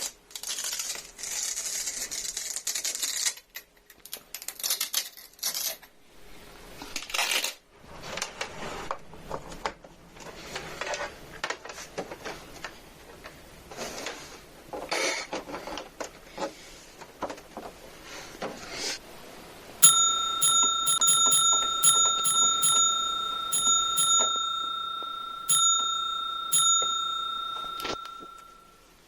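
Packaging being handled, with irregular rustling and crinkling. About two-thirds of the way through, a loud, steady, high bell-like ringing tone starts, swells again twice and fades away near the end.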